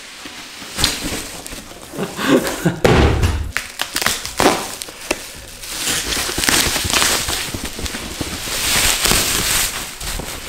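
Cardboard shipping box scraping and knocking as it is lifted off, with a dull thud about three seconds in. From about six seconds in, a plastic bubble-wrap bag rustles and crinkles as it is pulled off a boxed camera lens.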